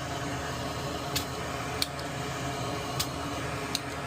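Bench work desoldering relay legs on a circuit board: four short, sharp clicks of tools over a steady fan-like hum.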